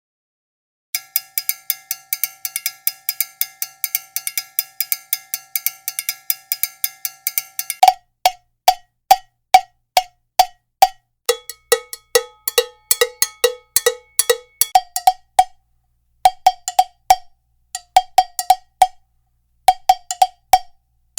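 Cowbell struck in even, rhythmic patterns. About a second in, a fast run of ringing strikes begins and lasts several seconds, then slower single strikes follow at about two or three a second. For a few seconds midway, a lower-pitched bell alternates with the higher one, and near the end the strikes come in short groups with pauses between.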